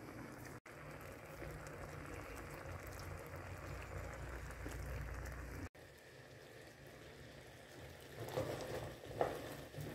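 Peanuts in sugar syrup bubbling at a steady boil in a stainless steel pot, the syrup boiling down to candy-coat the nuts. Near the end a spoon stirs through the thickening mixture with a few scrapes and knocks against the pot.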